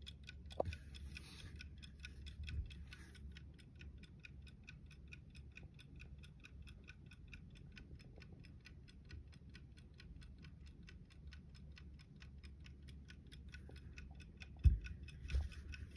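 Clockwork movement of a 1930s J. Oswald carved wooden French bulldog 'google eye' clock ticking quickly and evenly: the clock is running. A few knocks and rustles come from the clock being handled, the loudest near the end.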